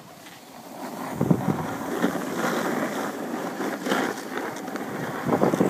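Skis scraping and hissing over packed snow on a downhill run, mixed with wind rushing over the microphone; it swells from about a second in and surges unevenly.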